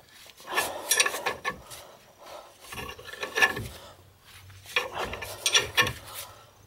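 Forcing screw of a C-frame ball joint press being turned with a wrench, metal rasping and grinding under load in three spells, as a new ball joint is pressed into the upper control arm.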